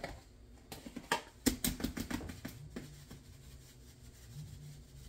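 A plastic container and its lid being handled: a handful of sharp clicks and taps in the first two seconds, then quieter with a faint low hum.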